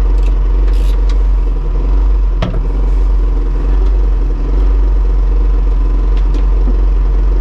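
Steady low rumble like an engine running, with one sharp knock about two and a half seconds in.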